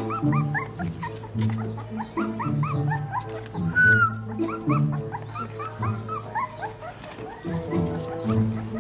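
Young puppies squealing and whimpering in a quick, uneven string of short rising yelps, with one longer falling whine about four seconds in, over background music.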